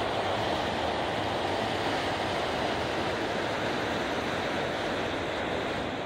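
Norfolk Southern freight train of autorack cars rolling steadily past, a constant rushing noise of wheels and cars on the rails.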